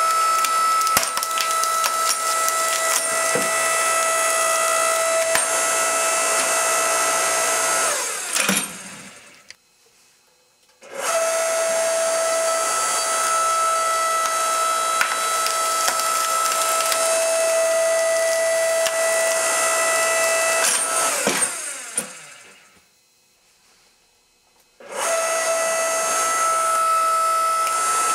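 Electric log splitter's motor and hydraulic pump running with a steady whine as the wedge works on a shoe. Twice the motor cuts out and winds down, leaving a couple of seconds of quiet, then starts again at full speed.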